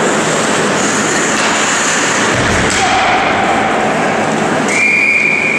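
Ice hockey game in an indoor rink: a steady din of skates and play on the ice, with a dull thump about halfway through. Near the end a single steady high whistle sounds, typical of the referee stopping play.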